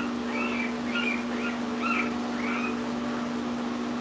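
Newborn American Bulldog puppies squeaking and whimpering: several short high squeaks, about one every half second, in the first couple of seconds, over a steady low hum.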